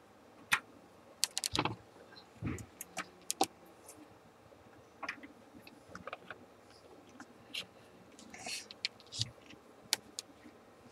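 Test leads being handled and a banana plug pushed into a multimeter's input jack: scattered light clicks and taps with brief rustles of the cables.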